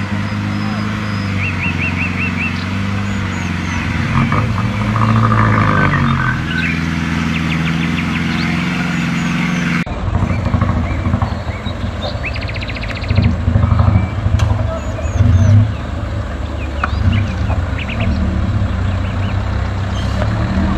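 Off-road vehicle's engine running under load. Its pitch rises and falls about five to seven seconds in, and after a sudden cut near the middle it runs rougher and more unevenly. Birds chirp over it.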